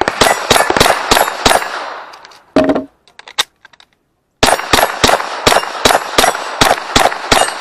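Rimfire rifle firing rapid shots at steel plates that ring on the hits: a quick run of about six shots, a pause of about two seconds, then another run of about eight.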